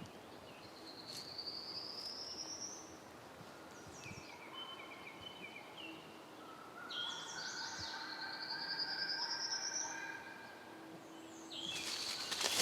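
Woodland songbirds singing: a buzzy trill that climbs in pitch, about a second in and again about seven seconds in, among other birds' short repeated notes.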